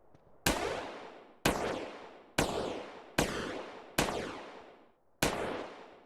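Six sharp bangs at uneven intervals of about a second, each followed by a ring of reverberation that dies away over most of a second.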